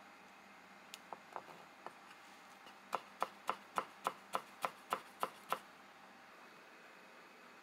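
Kitchen knife chopping a thin green garnish on a white cutting board: a few light taps, then a run of about ten quick, even knocks of the blade on the board, roughly four a second, which then stop.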